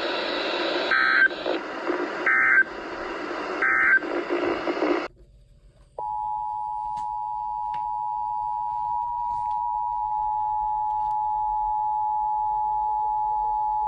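NOAA Weather Radio Emergency Alert System signalling. Three short squawks of SAME digital data bursts sound over a harsh radio hiss. After a second of quiet, the steady two-tone EAS attention signal starts abruptly and holds for about nine seconds, announcing a new warning.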